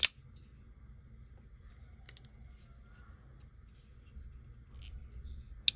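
Mick Strider Custom Stubby folding knife being handled: a sharp click as it starts and another sharp click near the end, with faint small handling ticks between. The clicks are the blade snapping into place as it is opened or closed.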